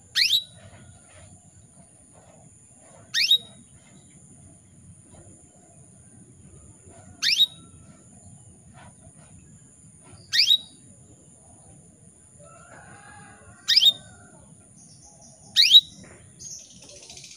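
Female canary calling: six short, sharp chirps, each a quick downward sweep, spaced a few seconds apart. This is the call of a hen in breeding condition calling to males.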